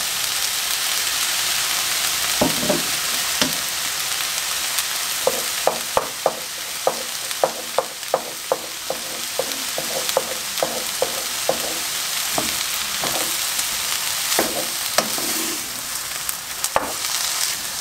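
Chicken and onion sizzling in a hot stone-coated frying pan with soy sauce just poured in, a steady hiss. A wooden spatula stirs the pan, its strokes knocking against the pan in a run of short taps, about two a second, from about five seconds in.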